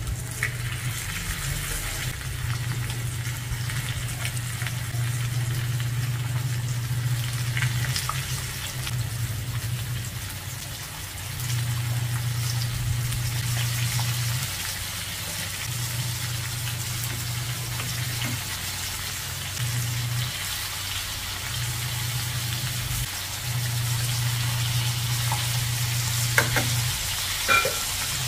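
Flour-dredged bone-in chicken pieces frying in hot oil in a nonstick pan: a steady sizzle, with a few clicks of metal tongs as the pieces are placed and turned. Underneath, a low hum cuts in and out every few seconds.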